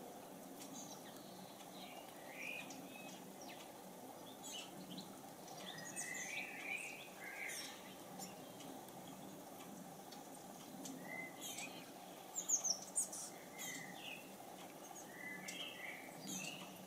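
A tit bathing in a small table fountain: scattered short, high chirps and brief splashy flutters over the fountain's steady trickle. A quick run of four sharp splashes comes about three-quarters of the way through.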